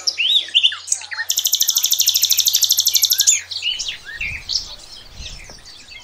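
Small birds chirping with many short, quick high calls. About a second in, a fast, even, high trill of roughly fifteen pulses a second runs for about two seconds.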